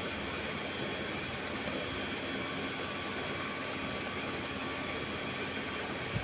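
Steady background hiss with a faint even hum and no change in level, and one short tap just before the end.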